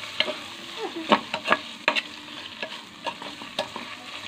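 Shredded chicken and white onion sizzling in butter in a non-stick pot while a metal spatula stirs them, with several sharp scrapes and clicks of the spatula against the pot. The chicken is being fried until it browns.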